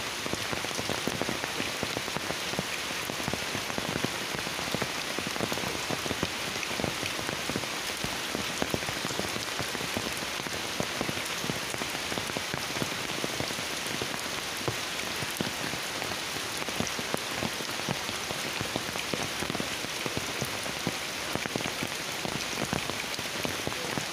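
Heavy rain falling steadily, a dense patter of drops striking an umbrella overhead and the thick foliage around it.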